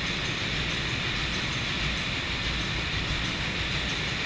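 Large stationary multi-cylinder diesel engine driving a generator, running steadily: a deep, even running sound with a constant hiss and clatter above it.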